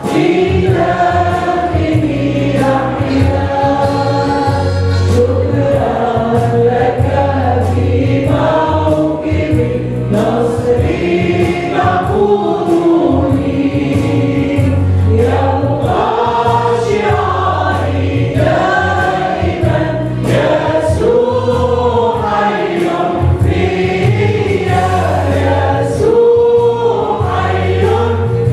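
Small worship group of women and a man singing an Arabic church hymn together, accompanied by oud, keyboard and drums with a steady beat.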